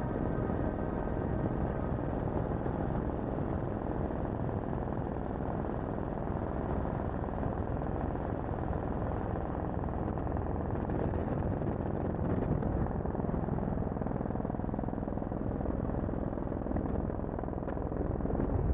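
Light helicopter in flight, heard from a microphone mounted outside the cabin: steady engine and rotor noise mixed with wind rushing over the microphone.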